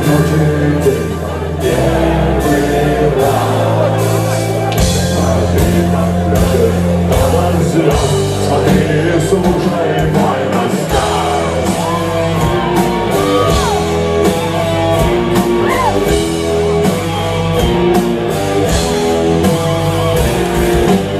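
Live rock band playing a loud passage between sung verses, with steady drum hits under sustained bass and guitar notes and a few bending pitches; voices from the stage or crowd may be mixed in.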